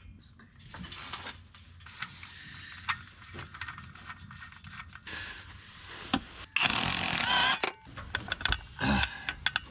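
Hand tools and metal parts being handled during work under a car: scattered metallic clicks and knocks, with a louder noisy stretch of about a second around seven seconds in.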